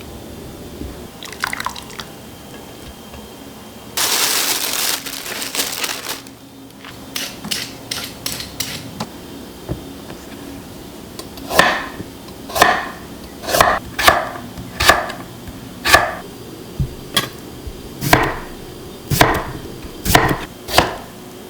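Kitchen food-prep sounds: about four seconds in, a two-second rush like running water, then light clicks and a series of sharp knocks about once a second, each with a brief ringing tone.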